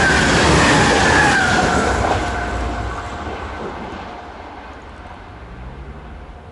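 RENFE Class 490 Alaris tilting electric train passing at speed, its whine dropping in pitch as it goes by. The sound is loudest in the first two seconds, then fades away as the train recedes.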